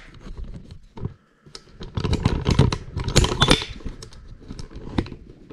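Handling noise from a handheld camera being moved: a dense flurry of quick clicks, taps and rustles, heaviest in the middle, with a few lone clicks before and after.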